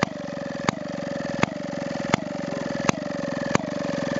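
Maytag Multi Motor, a small single-cylinder two-stroke washing-machine engine, running at a steady putt-putt. A louder pop comes about every 0.7 s, six times in all.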